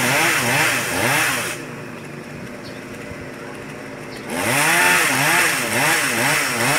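Two-stroke chainsaw cutting tree branches, its engine pitch rising and falling under load. About a second and a half in, it drops to a quieter idle for nearly three seconds, then revs up and cuts again.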